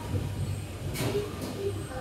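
Restaurant background: a steady low rumble with faint voices in the room, and one sharp click or clink about a second in.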